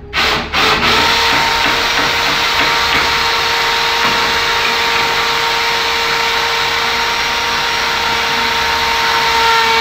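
Cordless drill spinning a round sanding pad against the edge of a doorway. It gives a few short pulses, then runs without a break, a steady tone under a loud rasping hiss.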